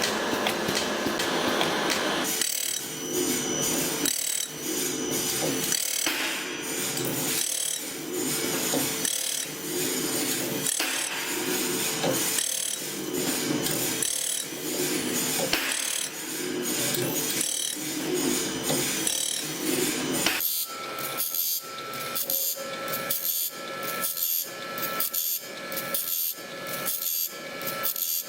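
A saw-blade making machine working with a rasping, filing sound in an even stroke, about once a second. About twenty seconds in, the rhythm quickens and takes on a higher ringing tone.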